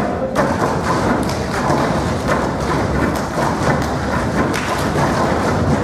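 A group of people thumping and tapping with their hands on a wooden rail, a dense, steady patter of many knocks with no clear beat.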